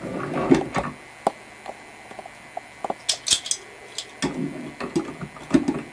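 Channel-lock pliers clicking and scraping against a metal bathroom faucet aerator as they grip and try to turn it: a string of small metallic clicks, with a short high scrape about three seconds in.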